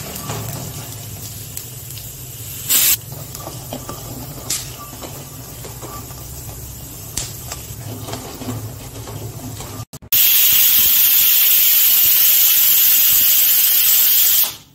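A metal spatula stirs dry-roasting peanuts in an aluminium kadhai, with scattered scrapes and clicks against the pan. About ten seconds in this gives way to a loud, steady hiss of steam escaping from the weight valve of an aluminium pressure cooker boiling potatoes. The hiss stops abruptly near the end.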